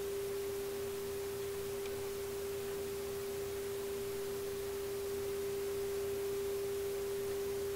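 Steady single-pitched test tone from a Marconi 201A tube radio's speaker: the signal generator's tone-modulated 455 kHz IF signal coming through the set while the last IF transformer trimmer is peaked for maximum output.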